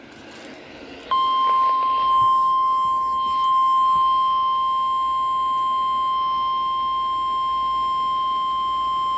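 NOAA Weather Radio warning alarm tone: one steady, unbroken high beep at a single pitch, coming in suddenly about a second in and holding. It signals that a warning is about to be broadcast, here a special marine warning.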